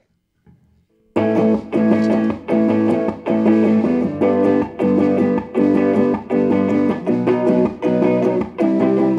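A lone guitar strumming a repeated chord pattern in an even rhythm, starting about a second in: the intro of a garage-pop rock song before the band and vocals come in.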